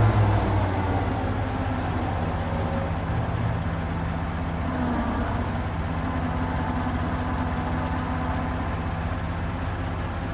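Truck crane's engine running steadily at idle. A louder, throbbing engine note eases off about half a second in.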